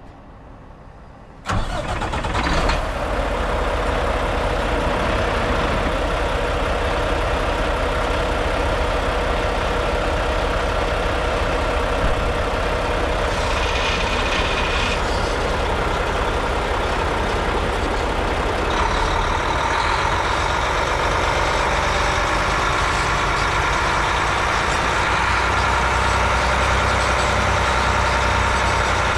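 2015 Mack CHU613 truck tractor's diesel engine starting up suddenly about a second and a half in, then idling steadily.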